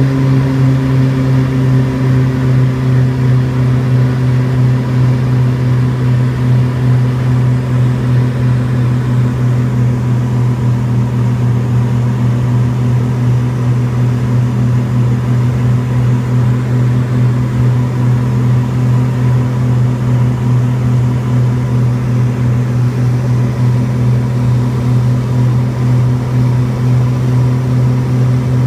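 DHC-6 Twin Otter's Pratt & Whitney PT6A turboprops and propellers droning steadily in cruise, heard inside the cabin, with a low propeller hum and a slight waver in loudness. The pitch eases down a little in the first couple of seconds, then holds steady.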